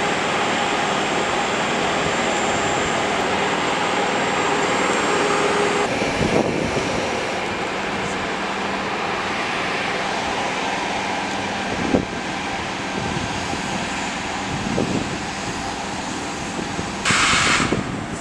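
Standing electric locomotives running their cooling blowers: a steady jet-like whoosh with a thin high whine. The whoosh thins slightly about six seconds in, a single knock comes at about twelve seconds, and a brief loud hiss comes near the end.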